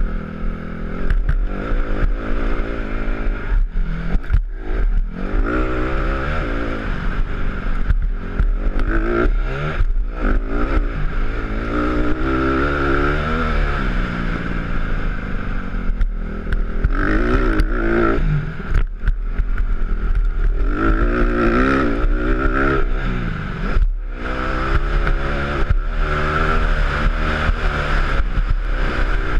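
Honda CRF150 dirt bike's single-cylinder four-stroke engine revving hard around a motocross track. Its pitch climbs and falls again and again with brief breaks as the rider accelerates and backs off.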